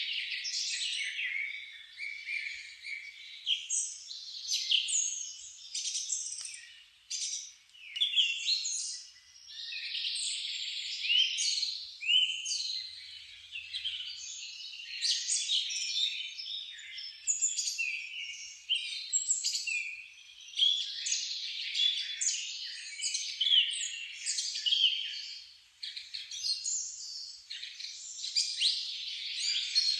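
Several songbirds singing and chirping at once: a dense chorus of overlapping high-pitched twitters, trills and short whistled phrases that never lets up.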